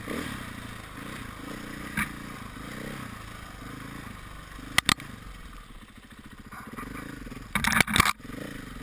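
KTM 500 EXC enduro bike's single-cylinder four-stroke engine running under changing throttle, its pitch rising and falling. Sharp knocks and clatter from the bike over the rough ground cut in: once about two seconds in, a quick pair near the middle, and a loud burst near the end.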